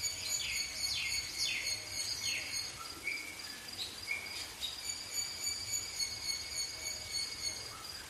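Field ambience of insects: a steady high-pitched insect tone runs throughout, while a bird gives a quick series of short falling notes, about two a second, over the first three seconds or so, then only scattered ones.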